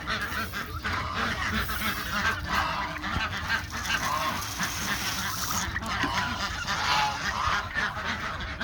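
Domestic geese honking repeatedly, many calls overlapping without a pause.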